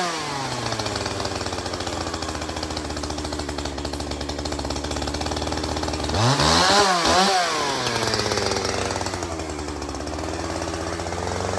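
Chainsaw engine idling, with one brief rev up and back down a little past halfway through; it settles back from a rev just as it begins and picks up speed again near the end.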